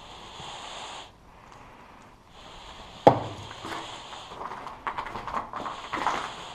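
Footsteps crunching over a floor littered with broken wood and plaster, with one sharp thump about three seconds in, then irregular crunching steps. A soft hiss comes and goes.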